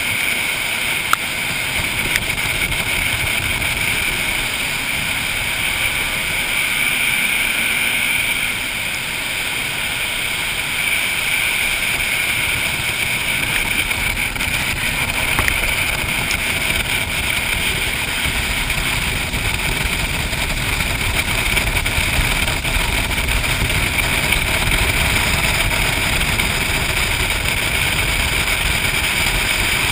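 Jet boat running down a river at speed: a steady engine and water-jet noise with a whine running through it, mixed with water and wind rushing past the hull.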